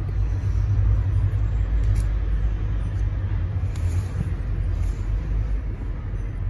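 A steady low rumble throughout, with faint scrapes and clicks of a utility knife slitting the plastic wrap and seals on a cardboard tablet box.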